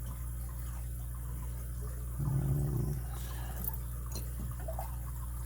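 A steady low hum with a few faint, light metal clicks, typical of a tension wrench and pick being set into a brass padlock's keyway. About two seconds in there is a short, low hum.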